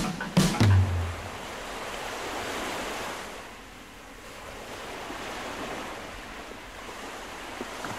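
A couple of sharp closing hits and a low boom end the electronic music in the first second. After that comes a steady wash of sea waves that swells and eases.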